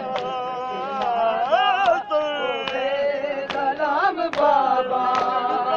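A noha (Shia lament) sung live by a male reciter in a single ornamented melodic line. The crowd of mourners beats their chests (matam) in unison under it, a sharp slap a little more than once a second.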